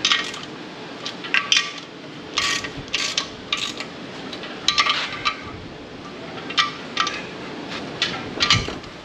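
Socket wrench and long extension working around the clutch pressure-plate bolts: scattered sharp metal-on-metal clinks with a short ring, at irregular spacing.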